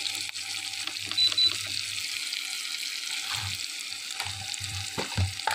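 Sliced onions, green chilli and ginger sizzling steadily in hot mustard and refined oil in a metal kadhai, with a few knocks and scrapes of the spatula against the pan.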